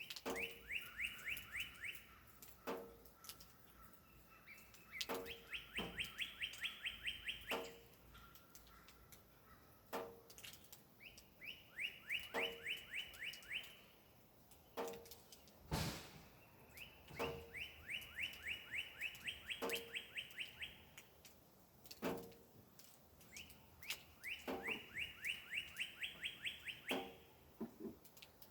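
A songbird singing a fast trill of rapid repeated notes, faint, five songs each a couple of seconds long with about six seconds between them.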